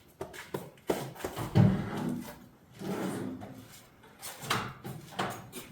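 Tools and objects being shifted about during a search for a mislaid tool: irregular knocks, rubs and clatter, with the loudest thump about a second and a half in.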